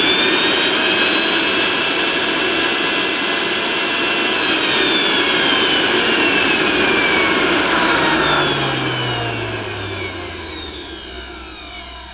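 Sujata Dynamix 900-watt mixer grinder's motor running at speed with a high, steady whine. About four seconds in its pitch starts to fall steadily as the motor slows, and the sound fades away near the end.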